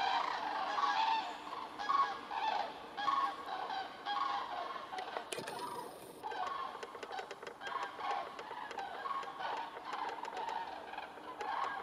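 A flock of common cranes calling in flight, many loud trumpeting calls overlapping, getting fainter after about five seconds.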